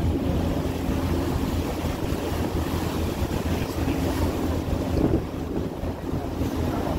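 Lake ferry's engine running with a steady low hum, under wind buffeting the microphone and water washing past the hull.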